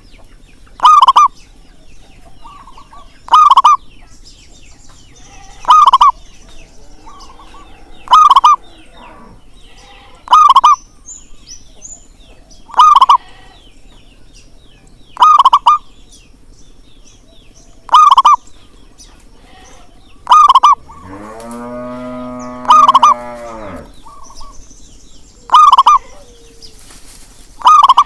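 Zebra dove (perkutut) calling, one short loud call repeated at an even pace about every two and a half seconds, a lure recording to get other perkutut singing. About three quarters of the way through, a rooster crows once for about three seconds.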